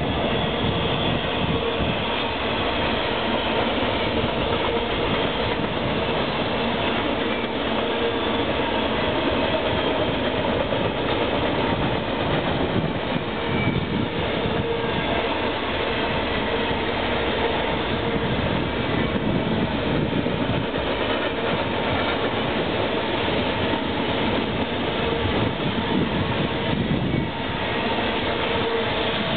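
Double-stack container well cars of a fast freight train rolling past close by: a steady, loud rumble and rush of steel wheels on the rails, with a faint steady tone running through it.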